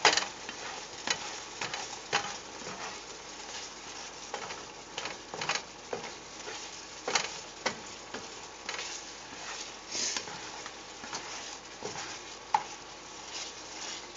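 A spatula stirring and scraping asparagus spears around a stainless steel skillet in irregular strokes, over a steady sizzle of garlic sauce simmering and thickening in the pan.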